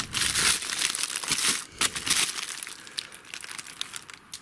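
Crinkling and rustling of the packaging of a firework dummy being handled. The rustling is heaviest in the first couple of seconds, then thins to scattered light crackles and clicks.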